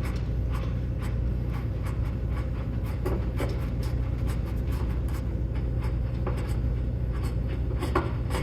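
Light scattered clicks and rubbing from hands handling parts and tools, over a steady low hum.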